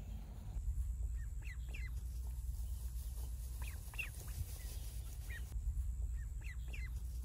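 Ducklings peeping: short, high calls that come in small clusters of two or three every second or two, over a steady low rumble.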